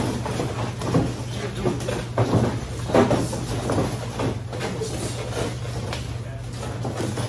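Gym sparring with boxing gloves: irregular thuds and slaps of punches landing, and bare feet shuffling on the ring canvas, over a steady low hum. The loudest thuds come about one second and three seconds in.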